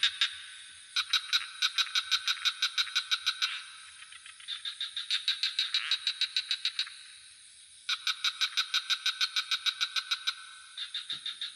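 Frogs calling in trains of rapid pulses, about seven a second. Four trains, each two to three seconds long, come with short gaps between them, over a steady high insect trill.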